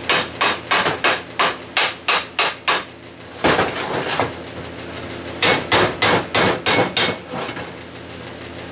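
Hand hammer striking a curved steel plate laid over a steel pipe, bending it into the curve of a small bucket. There is a quick run of about a dozen blows at about four a second, a brief clatter as the piece is repositioned, then a second run of about six blows.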